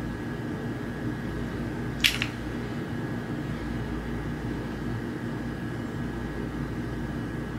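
Steady low background hum of a small room, with one short, sharp click about two seconds in.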